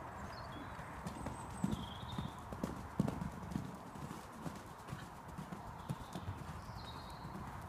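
Connemara pony's hooves beating on a soft arena surface, a run of dull low thuds about two a second. Faint bird chirps sound now and then over them.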